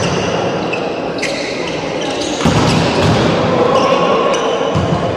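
Volleyball rally in an echoing hall: the ball struck a few times and shoes squeaking on the court, over players' and spectators' voices.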